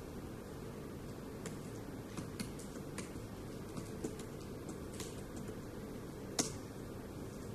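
Typing: a dozen or so soft, irregular key taps over a steady low background hum, with one sharper tap about six and a half seconds in.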